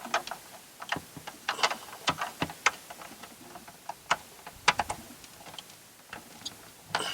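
Irregular small plastic clicks and taps from handling an LED bulb and the interior light fitting, about a dozen clicks spread unevenly with pauses between.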